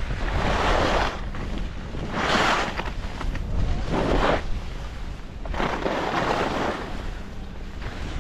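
Skis carving linked turns on snow: a scraping swish that swells with each turn, four times about every two seconds, over steady wind noise on the microphone.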